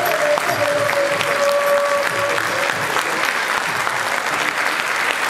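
Audience applauding, a dense steady clapping, while the last held note of the accompanying music fades out over the first two seconds or so.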